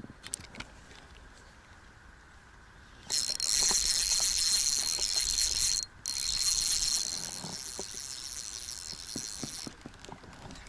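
Spinning reel buzzing loudly with a steady high whine for about six seconds, breaking off for an instant partway through, as line runs through it while a fish is being played.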